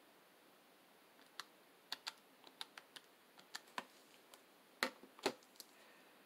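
Plastic keys of a desktop calculator pressed one after another, a run of soft irregular clicks while a subtraction is keyed in, then two louder knocks about five seconds in.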